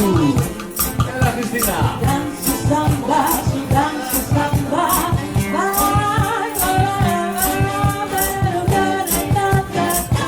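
Vocal trio singing in close harmony over a steady hand-shaker rhythm and low bass notes, the voices holding long, gliding notes.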